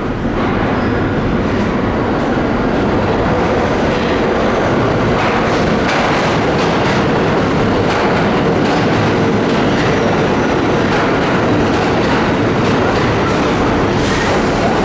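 R46 subway train running into the station, a loud steady rumble of steel wheels on rail with repeated clicking over rail joints. It grows louder in the first second, then holds level.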